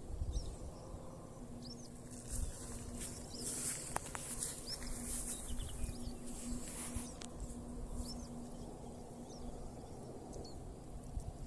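A bird repeating a short, high chirp about once a second, over a low rumble of wind or ambient noise, with a faint steady hum through the middle.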